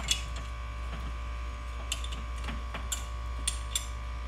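Light scattered clicks and rattles of a metal junction cover plate, conduit connector nut and stripped wires being handled, about five of them, over a steady background hum.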